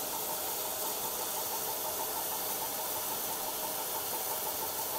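USATC S160 2-8-0 steam locomotive standing in steam, ready to depart, giving off a steady hiss with a fast, even pulsing. Heavy rain falls throughout.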